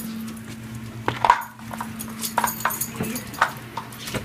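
Schnauzers eating kibble from a plastic slow-feeder bowl: a run of irregular clicks and clatters as the food is crunched and the bowl knocks about on the hardwood floor, over a steady low hum.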